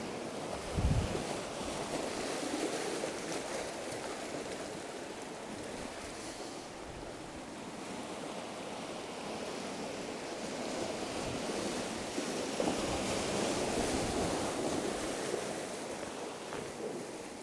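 Sea surf washing in and out over rounded shoreline boulders, a steady wash of water with some wind on the microphone. The surge grows louder about twelve seconds in, then eases. There is a brief low thump about a second in.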